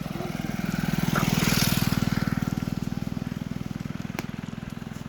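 A motor vehicle's engine, most likely a motorcycle's, going past: a fast, even low putter that grows louder to about a second and a half in and then slowly fades. There is one sharp click near the end.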